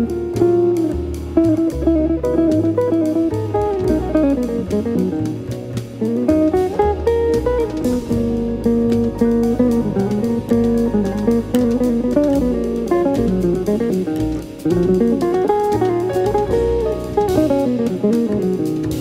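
Instrumental background music: a plucked guitar melody over a stepping bass line.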